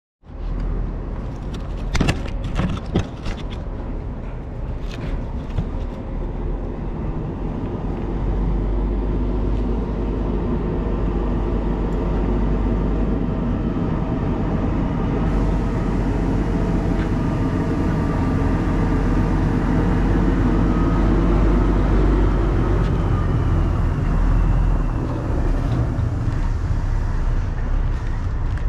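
A motor vehicle engine running steadily, getting louder about eight seconds in and easing off near the end, with a few sharp knocks in the first few seconds.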